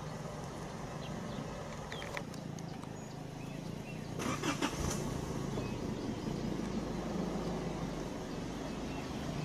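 Vehicle engine idling steadily, a low hum, with a short, louder, harsher sound about four to five seconds in.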